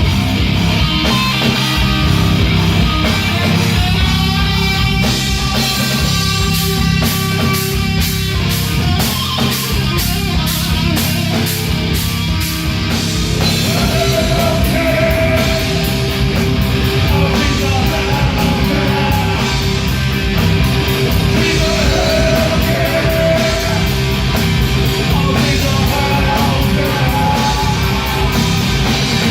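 A rock band playing live and loud: distorted electric guitar, bass and drums with a singer, the cymbals struck in a steady beat.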